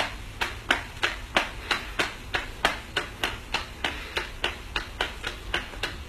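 Sharp taps repeating at an even pace, about three a second.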